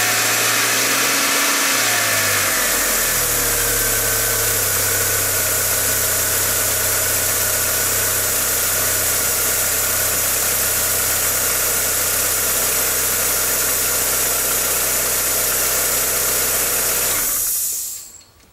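A 1999 VW Passat's 1.8-litre turbo four-cylinder engine idling with a strong steady hiss. Its speed wavers briefly about two seconds in, then holds steady, and the sound cuts off sharply near the end. The engine is running rough, which the owner blames on a failing mass airflow sensor.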